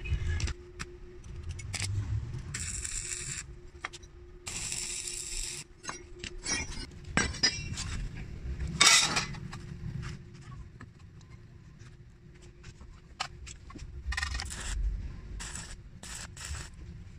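Steel square tubing and a thin metal sheet clinking, knocking and scraping on a concrete floor as they are handled and set in place, with a loud clank about nine seconds in. Near the end, short crackling bursts of a stick-welding arc tacking the sheet to the tube.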